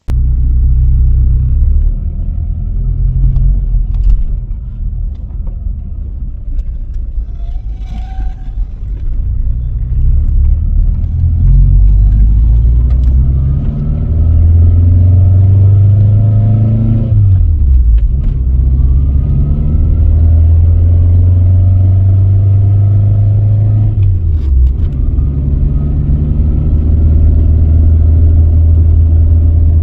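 Toyota Tercel wagon driving, heard from inside the cabin, with a heavy low rumble throughout. The engine note climbs and drops sharply twice, about halfway through and again about three-quarters through, as it is shifted up through the gears, then holds steady at cruise.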